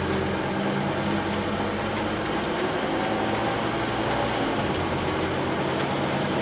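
Scania OmniCity double-decker bus in motion, heard from inside the passenger deck: a steady diesel engine hum with road and body noise. The engine note shifts about four and a half seconds in.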